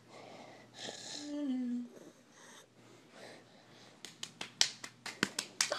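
A faint, short vocal sound with a falling pitch. Then, about four seconds in, a quick run of sharp smacks, roughly a dozen in under two seconds: a hand slapping bare skin on a leg.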